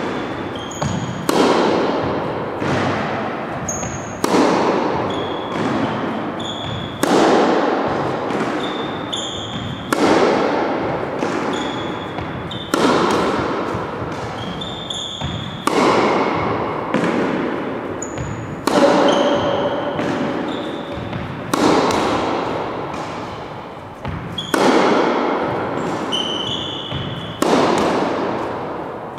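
Tennis balls struck with a racket about every three seconds in a rally, each hit a sharp pop that rings on in the echoing gym hall, with fainter ball bounces between the hits. Short high sneaker squeaks on the gym floor come between the strokes.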